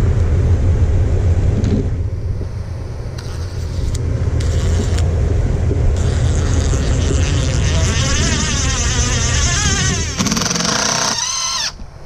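DeWalt cordless drill driving a screw through a conduit strap into fiber-cement siding. The motor whine wavers in pitch through the second half and cuts off abruptly near the end, over a steady low rumble.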